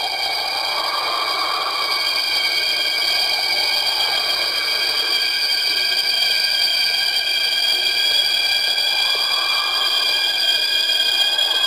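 Synthesized electronic drone from a cartoon soundtrack: several steady high tones held throughout, under a lower whooshing sound that swells and fades slowly about every four seconds.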